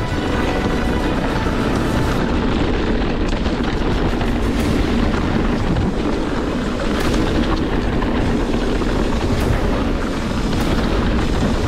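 Loud, steady rumble of wind on the microphone and an electric mountain bike running over rough trail at speed, with a few faint knocks. Cinematic trailer music plays underneath.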